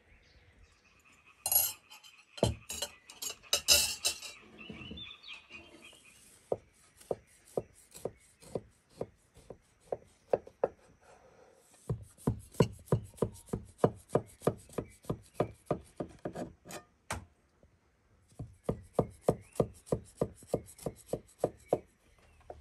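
A knife sawing through a carrot cake on a wooden board: short, sharp scraping strokes, about three a second, in two runs with a brief pause between them. There is a louder clatter of scrapes near the start.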